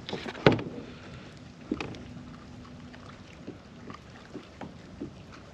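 Scattered light knocks and handling noises on a kayak, with one sharper knock about half a second in, over faint water sounds.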